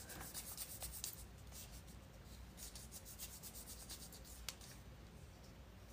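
Faint rubbing noise with a few small clicks, over a low steady hum.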